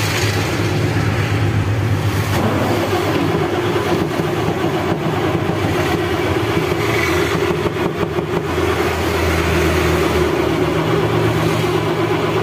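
Ashok Leyland BS4 truck's diesel engine being cranked by its starter without firing, a steady mechanical drone. This is a crank-no-start, which the mechanic puts down to a faulty crankshaft (flywheel) position sensor.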